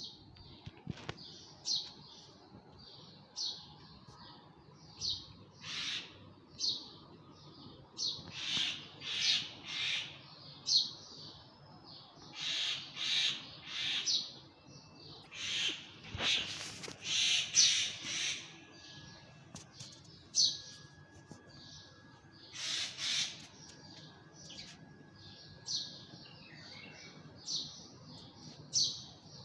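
A bird screeching: a long series of short, high calls about one a second, with louder, harsher screeches coming thick and fast in the middle stretch.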